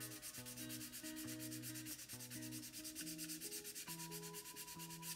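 Coarse sandpaper rubbed rapidly back and forth over the clear plastic window inserts of a scale-model airliner fuselage, an even scratching rhythm, sanding the windows flush until they turn evenly matte. Faint background music plays underneath.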